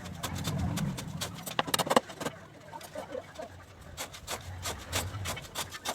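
Irregular sharp clicks and knocks, thickest about one and a half to two seconds in, over a faint low hum.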